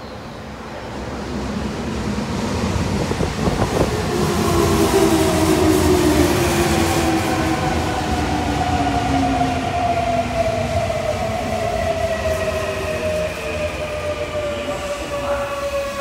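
Toei 6300-series subway train rolling in and braking, its Mitsubishi IGBT-VVVF inverter motor whine made of several tones falling steadily in pitch as it slows, over the rumble of the wheels.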